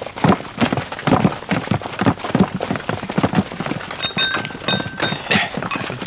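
Many irregular footsteps and knocks as soldiers move about on packed dirt, with a few short ringing clinks of dishes being handled about four seconds in.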